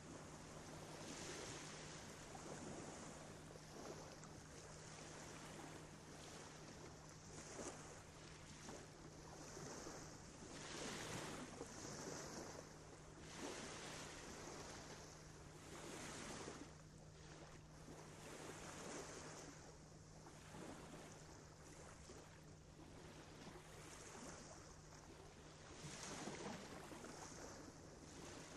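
Faint rushing noise that swells and fades every second or two, over a steady low hum.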